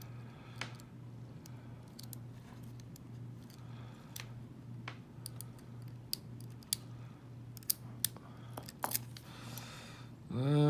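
Small scattered metallic clicks and scrapes of a lock pick and tension wrench working the pins in the keyway of a Winkhaus euro cylinder lock, over a faint steady low hum.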